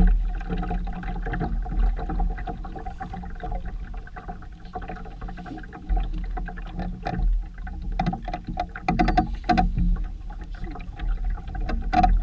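Steady noise aboard a sailboat under way: a low rumble with a constant hum running through it, and a quick run of clicks and knocks about eight to ten seconds in.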